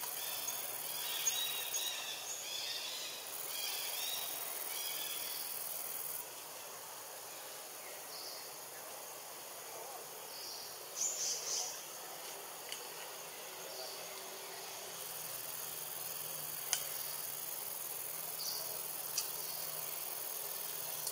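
Jungle ambience: a steady high drone of insects, with scattered high chirps in the first few seconds and a short burst of high calls about eleven seconds in.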